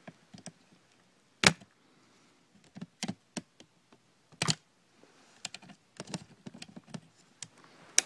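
Irregular plastic clicks and taps from a small screwdriver and fingertips working in an opened laptop's chassis while freeing the DC power jack. One sharp click about one and a half seconds in is the loudest, with a few more strong ones around three and four and a half seconds and lighter ticks after.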